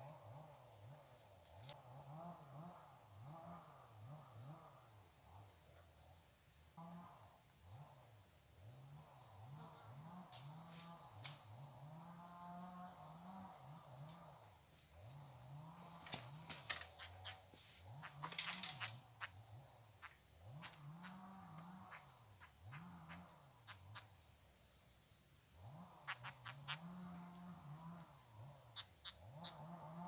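Insects droning with a steady high-pitched buzz, faint. Underneath runs a low wavering hum that keeps rising and falling, and a cluster of sharp clicks and rustles comes about sixteen to nineteen seconds in.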